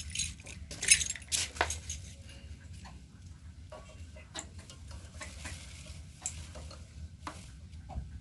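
Light metallic clicks and taps as the flywheel of a small air-cooled diesel engine is turned over by hand with the fuel line off the injector, a check of whether the fuel pump is delivering fuel. The engine does not fire; the clicks are sharpest and most frequent in the first couple of seconds, then sparse.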